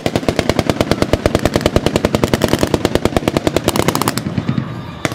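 Automatic gunfire with blank cartridges: one long unbroken full-auto burst of rapid, even shots, about ten a second, starting abruptly. It changes in tone after about three and a half seconds and breaks off just before the end.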